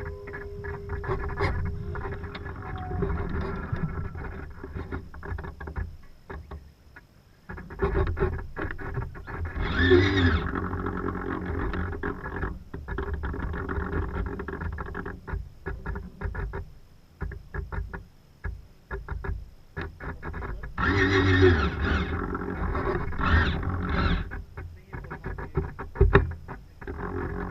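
Wind buffeting and water rushing past a small camera's microphone aboard a sailing boat, rising and falling unevenly. A louder wavering pitched sound cuts in about ten seconds in, and again for a few seconds past the twenty-second mark.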